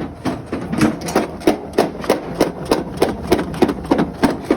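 Electric drop spreader on a Boss Snowrator running on its own after one press of its power button, with a steady rhythmic knocking about three times a second.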